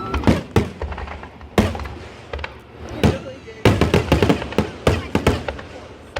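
Fireworks going off: a series of sharp bangs and crackles, coming thickest in a rapid run of cracks from a little past halfway.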